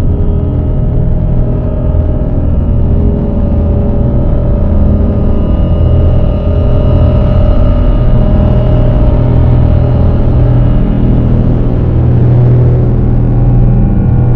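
Dark ambient drone music: a loud, dense low rumbling drone with sustained steady tones layered above it, holding without a break.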